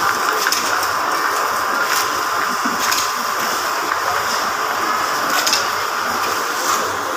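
Thin plastic produce bags crinkling in a few short bursts as garlic bulbs are picked into them, over a loud, steady hiss of supermarket background noise.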